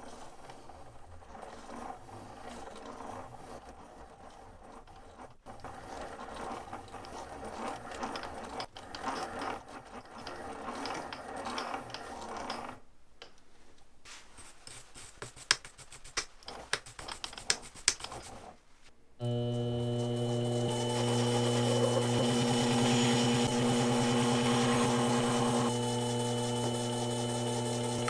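Small metal lathe cutting a thread on a metal rod with a die in the tailstock, a rough, uneven cutting noise. Several sharp clicks come around the middle, and about 19 seconds in the lathe motor runs up and keeps running loud and steady, with a low hum and a high whine.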